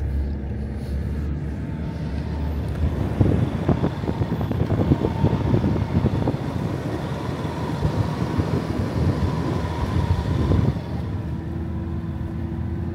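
Great Wall car driving on a rough snowy track: a steady low running rumble with many irregular knocks and rattles over most of it, easing near the end.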